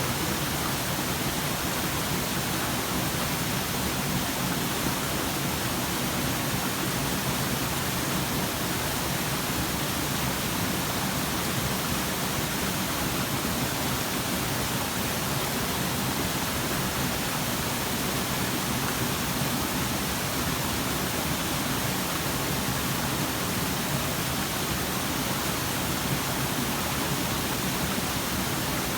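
Waterfall: water falling and splashing in a steady, even rush without a break.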